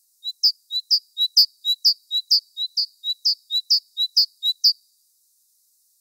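Great tit singing its two-note 'teacher-teacher' song: a lower and a higher note alternating in a quick, even rhythm, about nine pairs, stopping about five seconds in.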